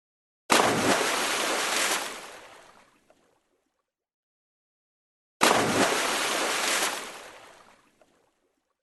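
Water splash sound effect, played twice the same way. Each splash starts suddenly and washes on loudly for about a second and a half, then dies away over another second and a half, with dead silence between the two.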